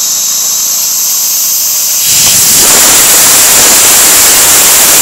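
Homemade arcjet thruster firing: a loud, steady hiss of propellant rushing out of its nozzle, with faint high whistling tones at first. About two seconds in it grows louder and fuller.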